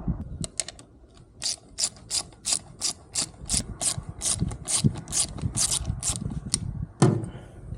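Socket ratchet wrench clicking steadily, about three clicks a second, as it backs out a 12 mm bolt holding the shifter base, ending in a single knock near the end.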